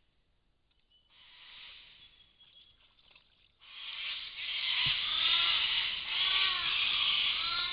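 Animal calls: short rising-and-falling cries about once a second over a loud hiss, with a single thud about five seconds in.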